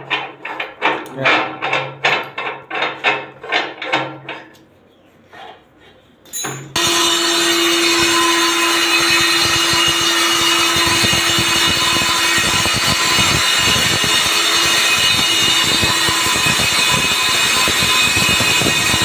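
About two knocks a second for the first four seconds, then a short pause. About seven seconds in, an electric diamond core drill on a rig stand switches on and runs steadily, a constant hum under a broad hiss, as its water-fed core bit bores into a reinforced concrete wall.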